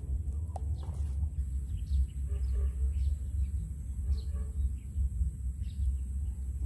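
Steady wind noise buffeting the microphone, with birds chirping now and then.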